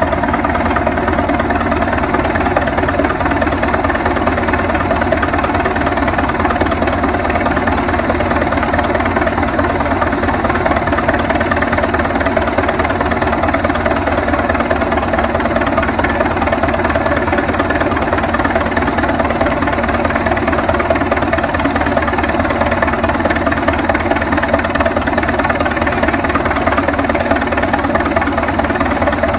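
Early Holt Caterpillar crawler tractor's engine running steadily at an even speed, with a rapid, regular beat of firing strokes.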